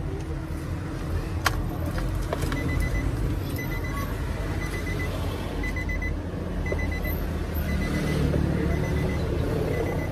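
Electronic warning beeper sounding in short bursts of rapid pips, about one burst a second, starting a couple of seconds in, over a steady low rumble of road traffic. A single sharp click comes about a second and a half in.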